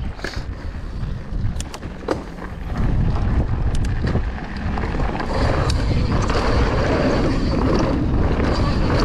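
Mountain bike riding downhill on a dirt and gravel trail: tyres crunch over loose stones with scattered clicks and rattles. About three seconds in, wind buffeting the microphone rises into a louder, steady rumble as the bike picks up speed.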